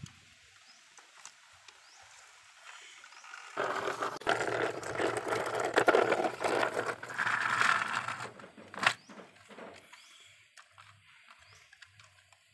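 Plastic toy car-carrier truck loaded with small die-cast cars being pushed across rough concrete: a dense rattling, grinding roll of plastic wheels and loose cars that starts a few seconds in and lasts about five seconds, then one sharp click. Faint bird chirps in the quiet before it.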